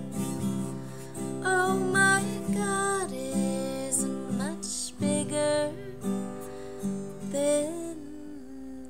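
Acoustic guitar strumming, with a woman's voice singing along over the chords.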